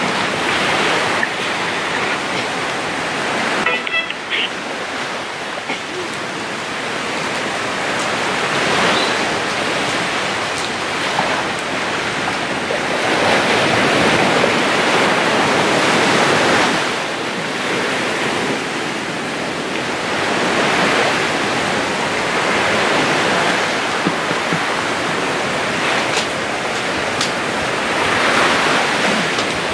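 Sea waves washing onto the shore: a steady rushing noise that swells and fades every few seconds.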